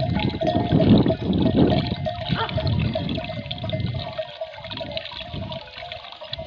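A thin stream of water runs from a metal pipe spout into a concrete water trough, trickling and splashing steadily on the water's surface.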